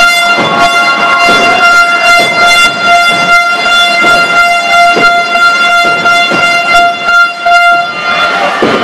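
Ice hockey arena horn sounding one long, steady note for about eight seconds, stopping shortly before the end.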